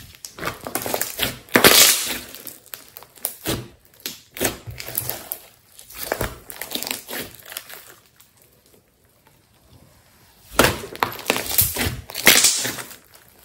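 Thick slime being stretched, squeezed and kneaded by hand, giving bursts of sticky crackling and popping. It goes almost quiet for a couple of seconds past the middle, then the crackling starts again.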